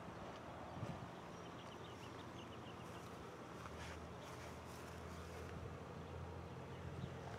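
Distant diesel locomotive running as it approaches, heard as a low steady drone, with insects buzzing and a few faint chirps over it.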